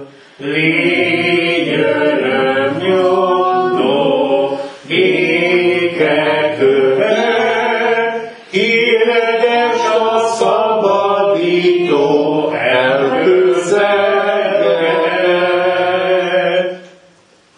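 A congregation singing a Hungarian hymn together, slow sung phrases with short breaths between them, the last line ending about a second before the end.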